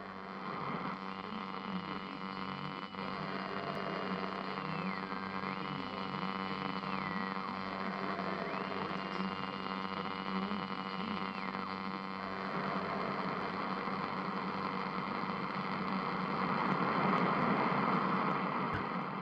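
A droning intro soundtrack: a steady hum of many held tones, over which a high wailing tone slides up and down between two pitches several times. From about halfway through, a hissing rush swells up and then fades away near the end.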